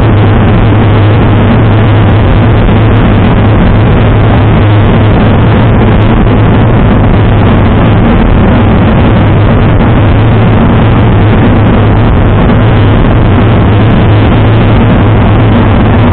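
Steady wind noise on a bike-mounted Garmin VIRB action camera's microphone, riding at about 42 km/h, with a constant low rumble and tyre noise on the asphalt.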